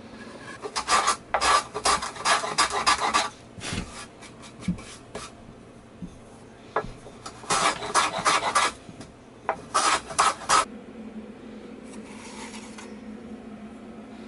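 Rapid back-and-forth rasping of a hand abrading tool across the top end of a small cedar block held in a vise, in several bursts of quick strokes.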